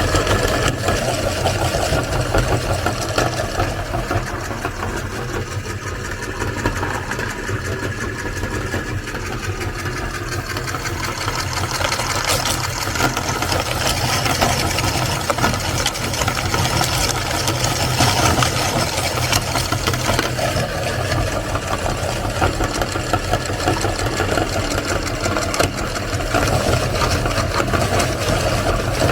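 Electric meat grinder running steadily with a low motor hum and a dense crackle over it as it grinds ice cream cones.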